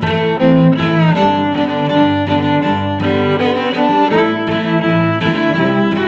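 Background music of bowed strings, violin and cello, playing sustained notes.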